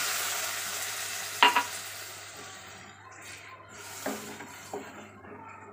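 Hot oil and spices in a metal kadhai sizzling just after water is poured in, the hiss dying away over about three seconds. A wooden spoon stirs the liquid, knocking sharply against the pan about a second and a half in and lightly a couple of times near the end.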